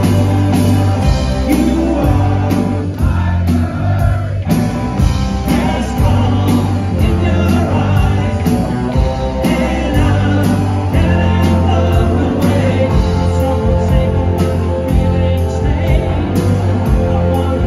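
Live rock band playing loud: two electric guitars, electric bass and a drum kit keeping a steady beat of about two cymbal strokes a second, with a male lead vocal singing over it.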